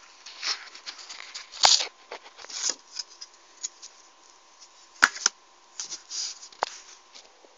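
A clear plastic set square handled and slid over paper: irregular scrapes and rustles, with two sharp clicks, one about one and a half seconds in and one about five seconds in.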